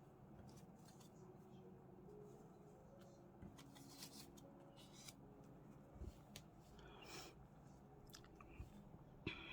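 Near silence with faint, scattered paper rustles and light taps from cut paper pieces being handled and laid out on a craft table.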